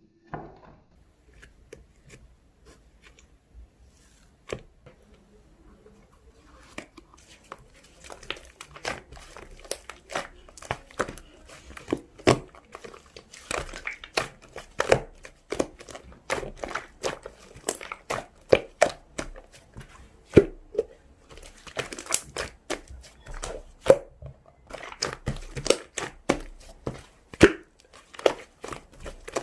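Slime being squished and stretched by hand, giving irregular crackling pops: a few faint ones at first, then a dense, louder run from about seven seconds in.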